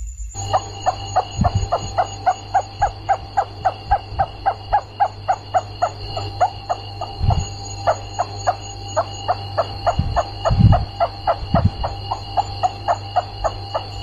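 Rats squeaking in a fast, even series of short calls, about four a second, that starts abruptly. Under it run a steady high whine and a low hum, with a few low thumps; the loudest is about ten and a half seconds in.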